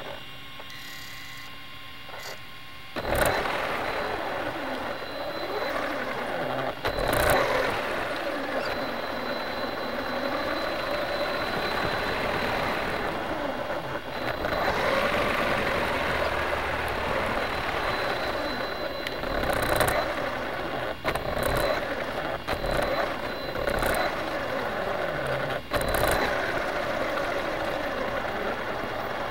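RC car driving: its motor whine rises and falls in pitch over a steady rush of tyre and ground noise. It gets much louder about three seconds in.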